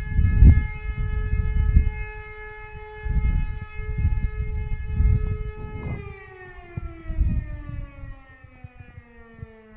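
Electromechanical E57 civil-defence siren sounding a steady wail for about six seconds, then winding down with its pitch sliding steadily lower. Heavy wind gusts buffet the microphone, rumbling underneath the tone.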